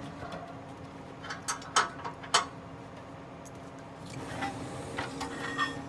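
Steady low hum of the drill rig's engine, with a handful of sharp metal clanks about a second in and a few more near the end as the hydraulic pipe spinner and steel well casing are handled.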